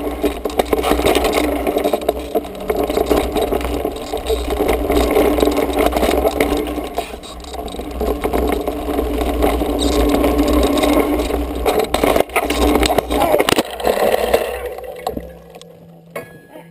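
Wind buffeting a mountain biker's action camera, over the clatter and rattle of a mountain bike and its tyres scraping over a rough dirt singletrack at speed. Near the end come a few sharp knocks as the rider crashes into a tree, and the riding noise stops.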